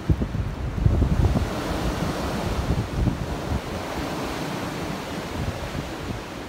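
Strong, gusty wind buffeting the microphone: an uneven low rumble with a rushing hiss over it, strongest in the first second or so and easing toward the end.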